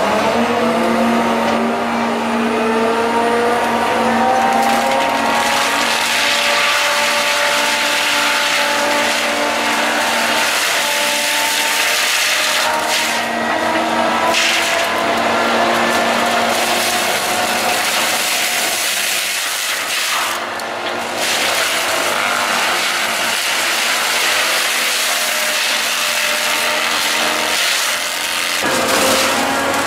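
Heavy excavator's engine and hydraulics working under load, its pitch rising and falling as the machine labours, with wood rubbing and grinding.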